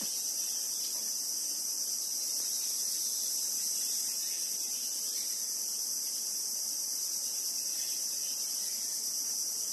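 A steady, high-pitched insect chorus, an unbroken shrill drone that does not change.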